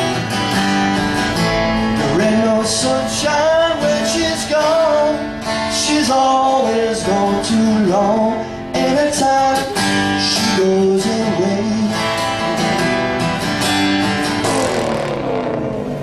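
A song with singing over acoustic guitar.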